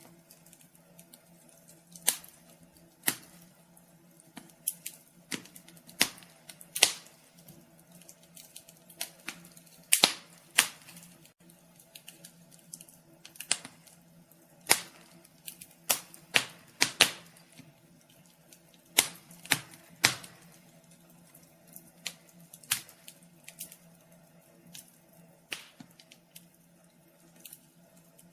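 Wood fire crackling: irregular sharp pops and snaps of uneven loudness, the loudest about ten and twenty seconds in, over a faint steady hum.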